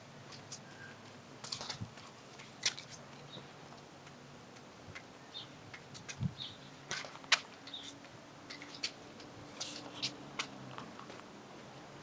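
A toddler's footsteps on a brick floor: light, irregular taps and scuffs of small shoes, with a few sharper clicks.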